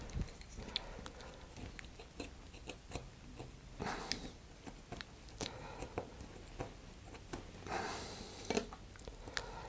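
Hand-work handling noise: scattered light clicks and taps of a hobby knife and small parts against a thin metal sled plate, with brief scraping sounds about four seconds in and again around eight seconds in.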